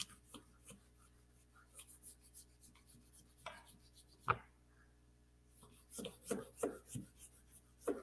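A red wax crayon, laid flat, is rubbed back and forth over paper resting on a flattened cardboard box: a faint scratchy rasping in quick repeated strokes. There is a sharp knock about four seconds in, and a few louder strokes around six to seven seconds.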